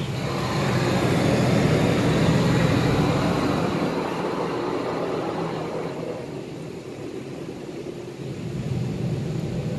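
Washworld Razor touchless car wash spraying water over the car, heard from inside the cabin as a steady rush over a low machine hum. The spray swells about a second in, eases past the middle and builds again near the end.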